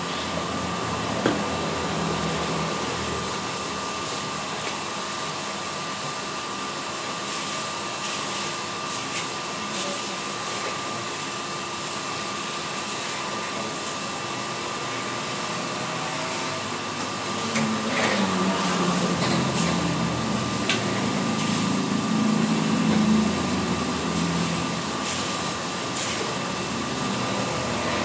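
Small drum coffee roaster running, its cooling-tray fan and stirring arms turning over a freshly roasted batch of beans: a steady machine hum with a thin steady whine. It grows a little louder for several seconds past the middle, and a few faint clicks come through.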